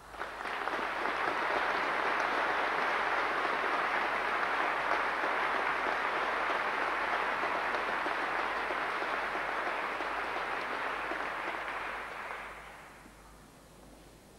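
A large audience applauding: the clapping starts at once, holds steady, and dies away about twelve seconds in.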